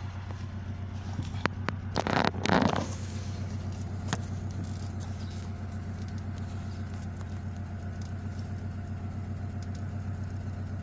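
Honda car engine idling steadily after a cleaning for rough idle, its RPM settling down with no more hunting. A short, louder burst of noise with clicks comes about two seconds in.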